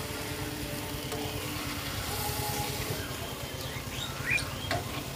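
Masala-coated snakehead fish pieces frying faintly on a flat iron tawa over a steady low rumble. About three and a half seconds in, a bird gives several quick rising and falling chirps.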